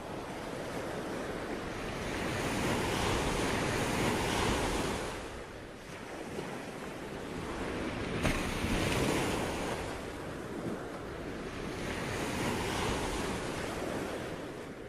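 Ocean waves breaking on a shore, surging and ebbing in three slow swells.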